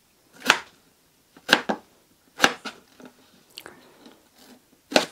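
Chef's knife cutting through raw potatoes and striking a plastic cutting board: several crisp, crunchy cuts, about one a second, some landing as quick doubles.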